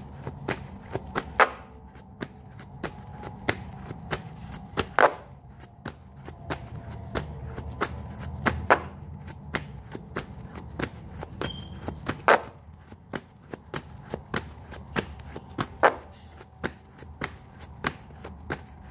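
A tarot deck being shuffled by hand: a quick, irregular run of crisp card flicks and taps, with a louder slap of the cards every three to four seconds.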